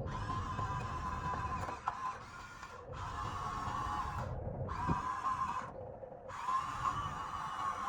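Small electric motors and plastic gearboxes of a toy RC construction machine whining as it works. The whine stops and restarts several times as the controls are released and moved again.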